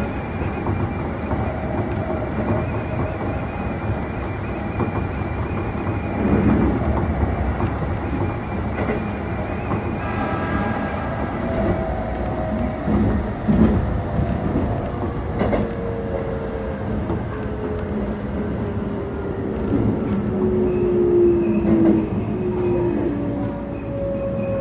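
Keikyu electric train running, heard from inside the front car: wheels knocking over rail joints and points as it nears a station. A whine falls slowly in pitch through the second half as the train slows.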